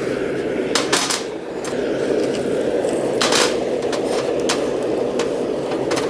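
Several sharp metal clanks and scrapes as a piece of hot steel is pulled out of a forge and laid down with the platen set on it, over a steady rushing sound that runs throughout.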